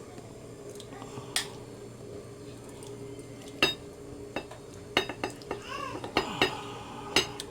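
A serving spoon clinks and scrapes against a plate and cooking pot as rice is dished out. There are several separate clinks, more of them in the second half, over a steady low hum.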